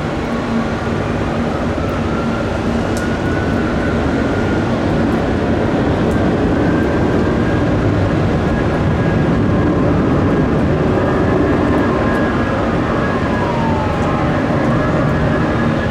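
Jet airliner engines running, a loud steady rush with thin whining tones that slide in pitch, growing louder over the first several seconds.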